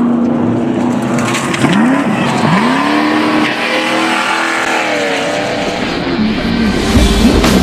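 Off-road race vehicle engines revving hard, their pitch holding briefly, then climbing and dropping again and again.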